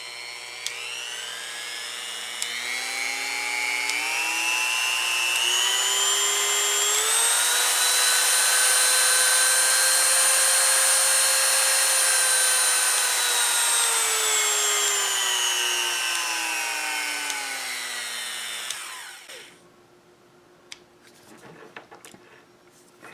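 Dremel 300 rotary tool's motor running with a high whine, stepped up through its speed settings to top speed, held there, then stepped back down and switched off about nineteen seconds in. The newly replaced speed switch is working, giving the full range of speeds, low end included.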